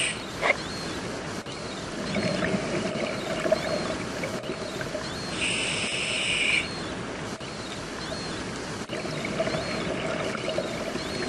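Scuba regulator breathing underwater: one inhalation hiss about halfway through, between bubbling exhalations, with scattered faint clicks.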